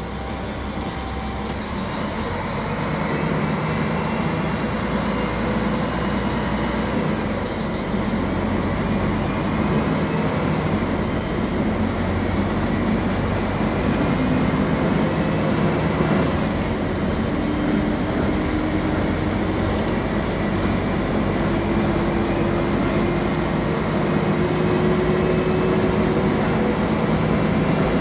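Mercedes-Benz OM-457 LA six-cylinder turbodiesel of an articulated city bus running steadily under way. Over the second half a whine climbs slowly in pitch as the bus gathers speed.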